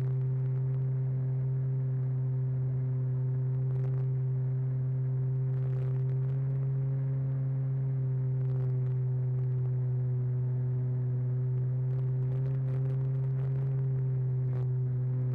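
RC model airplane's motor and propeller in flight: a steady droning hum with a few overtones, wavering slightly in pitch, picked up by a camera on board the plane.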